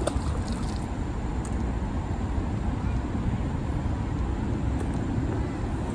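Steady low rumble of road traffic, with a few small clicks in the first second.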